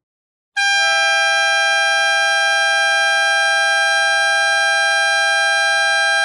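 Wolo Bandido Model 404 dual-tone air horn, its two trumpets sounding together at 620 and 740 Hz in one long, steady, very loud blast that starts about half a second in.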